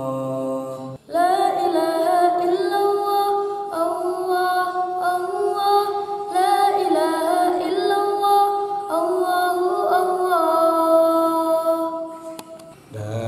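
A boy singing the high falsetto part of a choir arrangement alone, holding long notes that step up and down between pitches. A lower sung voice breaks off about a second in, just before he starts.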